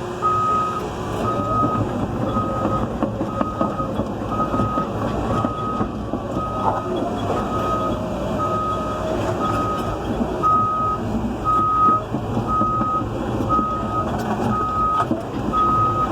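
CAT 320 excavator's travel alarm beeping steadily, a single high tone repeating a bit more than once a second, as the machine tracks along; its diesel engine and tracks run underneath.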